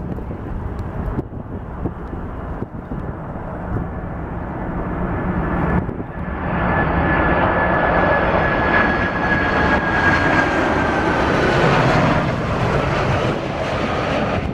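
Jet engines of a Boeing 747-400 airliner on final approach, passing low. A low rumble grows louder about six seconds in, carrying a high steady whine that drops slightly in pitch as the jet goes by.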